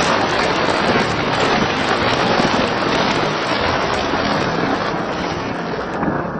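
Crowd applauding: dense, steady clapping from many hands, its brighter top thinning out near the end.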